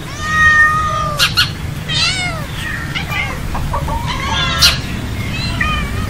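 Several domestic cats meowing repeatedly, first one long drawn-out meow, then shorter rising-and-falling meows at different pitches that sometimes overlap, with a few sharp short clicks among them.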